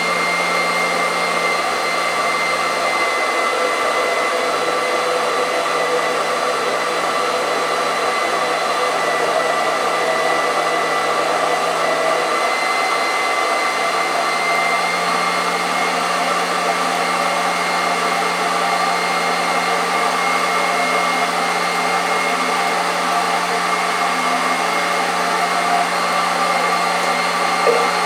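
Electric blender motor running steadily at high speed, pureeing raw duck livers, with a constant hum and whine and a small click near the end.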